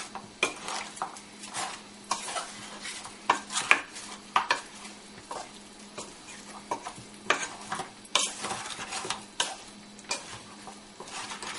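Wooden spoon stirring chunks of mutton in a metal pressure cooker pan, with irregular scrapes and knocks against the pot. The meat sizzles underneath as it browns.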